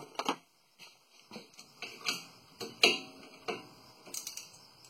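Scattered light metallic clinks and taps from handling a brake caliper bolt and tools, about half a dozen irregular strikes with the loudest just under three seconds in.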